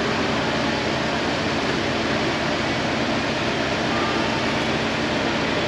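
Steady, unchanging machinery noise in a workshop: an even hiss over a low rumble, with no distinct knocks or tool sounds standing out.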